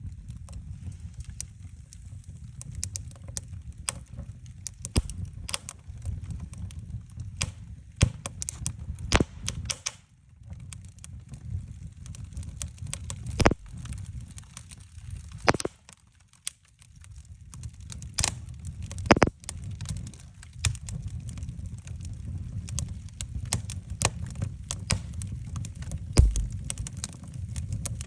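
Wood fire burning in a fireplace: irregular crackling and snapping of the burning logs over a low rumble of the flames, with several louder pops now and then.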